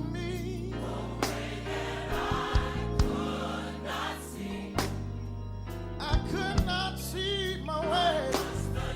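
Gospel music: a choir singing with band accompaniment, with a steady beat.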